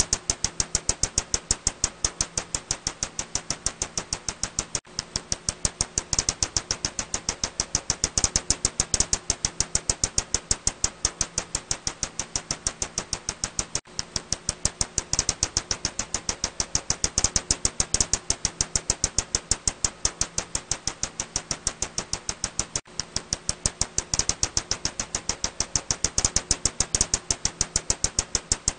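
Ussuri bat (Myotis petax) echolocation calls brought down into hearing range, heard as a fast, even train of sharp clicks, several a second, swelling louder and softer.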